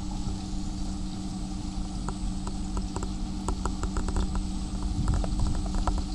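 Small electric canal boat (whisper boat) under way: its electric motor gives a steady hum over a low rumble. From about two seconds in there is a patter of short, light taps of water lapping at the hull.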